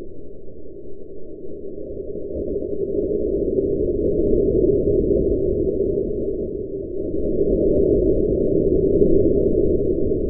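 Homemade nitric acid and diesel liquid-fuel rocket engine firing, a dull, rough rushing noise that grows about two seconds in, dips briefly near seven seconds and swells again as the burn strengthens.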